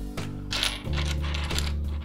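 LEGO plastic pieces clicking and rattling against each other as bricks are picked out of a loose pile.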